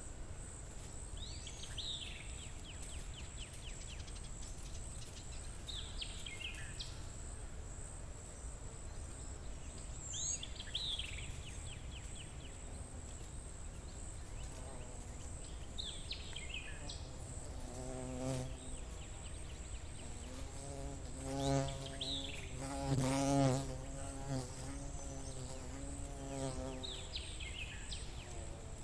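Forest ambience: a steady high insect trill, with a bird repeating a short descending call about every four to five seconds. In the second half a fly buzzes close by, its pitch wavering. The buzz is loudest a little before the end.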